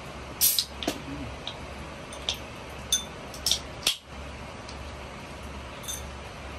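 Several short sharp clicks and clinks of tableware and aluminium soda cans being handled at a meal table, the loudest about half a second in, over a steady low hum.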